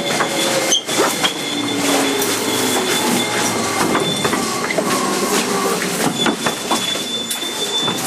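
Running sound inside a JR 205 series 5000 subseries electric motor car: wheels clattering over rail joints, with intermittent high wheel squeal and a faint traction-motor tone under steady running noise.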